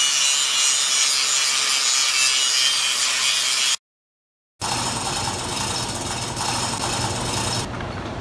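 Electric angle grinder with an abrasive disc grinding cast bronze: a steady, loud, hissing grind over the motor's whine. It cuts off about four seconds in, and after a short silence a quieter, lower shop noise follows.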